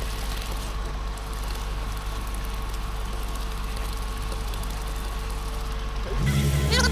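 Truck engine running steadily at a concrete pour, with a faint steady whine over it. Background music with a heavy bass comes in near the end.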